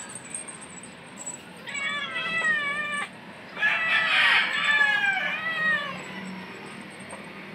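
Young cats meowing: a meow about two seconds in, then a louder, longer drawn-out meow from about three and a half to six seconds.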